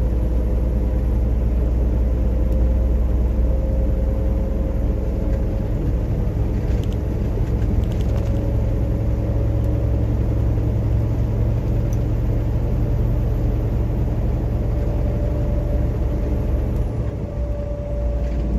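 Vehicle engine and road noise heard from inside the cab while cruising on the highway: a steady low drone with a faint whine that creeps up slightly in pitch, and the level dips briefly near the end.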